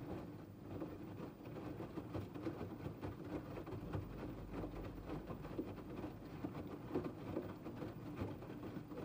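LG TurboWash front-loading washing machine tumbling wet laundry during the main wash: a steady motor hum with water sloshing and clothes flopping irregularly inside the drum.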